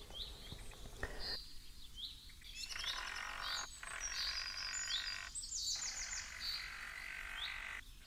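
Songbirds chirping: a short rising call repeated every second or so, with quick higher trills now and then, over faint background noise.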